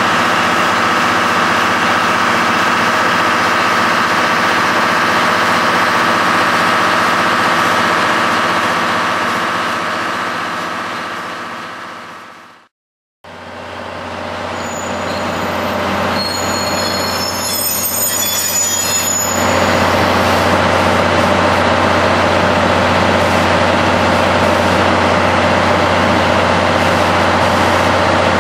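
Steady diesel engine hum beside stationary 12-series passenger coaches, fading out about halfway through. It fades back in on a JNR Class DD51 diesel-hydraulic locomotive, with several short high squeals, then the locomotive's engine drone grows steady and louder about two-thirds of the way in.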